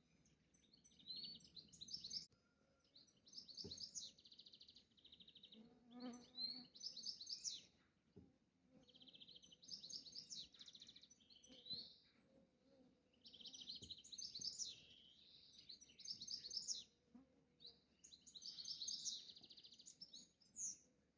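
Small songbirds singing: high-pitched phrases of quick chirps and trills, repeated every two to three seconds.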